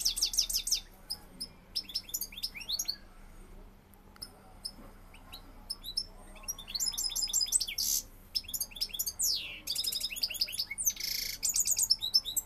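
Male European goldfinch singing its courtship song to a female: rapid twittering phrases of high chirps and trills. It sings only sparsely for a few seconds in the middle, then breaks into a long busy run with a harsh buzzy note near the end.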